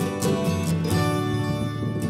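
Background music: strummed acoustic guitar with a steady rhythm.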